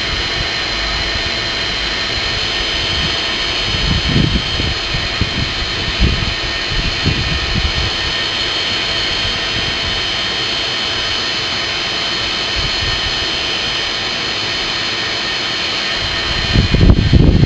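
Forge air blower running steadily, a loud rushing whine with several fixed pitches. A few low, muffled thumps come about four seconds in, around six to seven seconds, and near the end.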